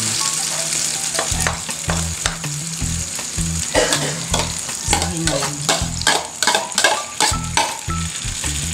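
Cabbage-and-egg batter sizzling in hot oil in a frying pan as more is poured in and spread. A spatula scrapes and taps against the pan many times, most busily in the second half.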